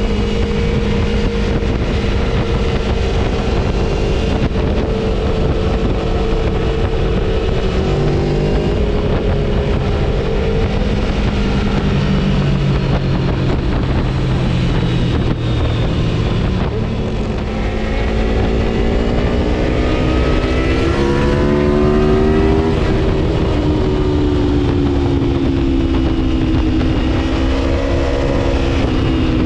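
Aprilia Tuono V4's V4 engine with a Gabro Stage 3 tune, on the road under way. It holds steady revs, settles to a lower note, then rises steeply as it accelerates hard about two-thirds of the way through, and falls away slowly in the last part.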